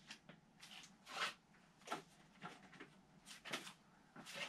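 Quiet room with a series of faint, short rustling noises, about eight of them.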